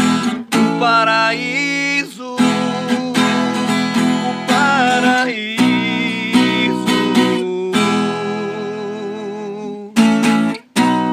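Music: a strummed acoustic guitar with a singing voice carrying the melody.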